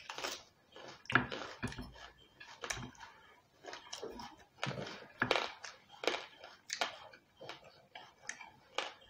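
Crunching and chewing of crispy fried pork and fried chicken close to the microphone, mixed with a fork scraping and clinking on a china plate. The sounds come in short, irregular crackly bursts.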